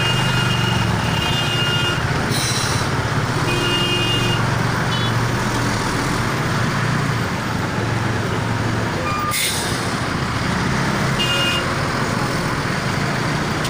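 Steady traffic noise: heavy vehicle engines humming and tyres on the road, heard while moving slowly past. Short high-pitched tones come and go several times, and there is a sharp click about nine seconds in.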